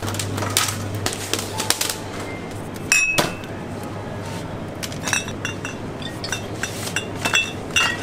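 Glass beer bottles clinking as they are taken from a shop fridge and set into a plastic basket: a sharp clink about three seconds in and a run of clinks near the end, over a steady low hum.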